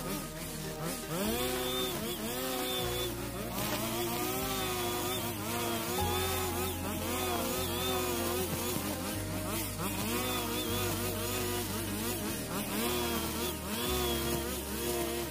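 45 cc two-stroke brush cutter engine running with its nylon line cutting grass, the pitch rising and falling again and again as the head swings through the growth. Background music with a stepping bass line plays under it.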